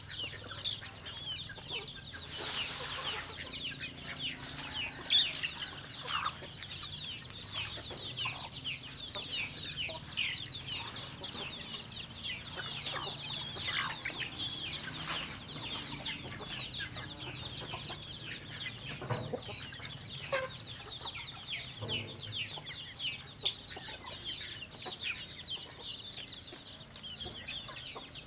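A flock of chickens calling continuously: many short, high clucks and peeps overlapping.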